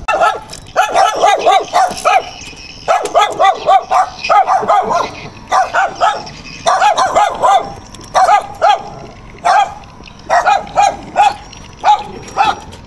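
A dog barking loud and fast, in quick runs of several barks with short pauses between them.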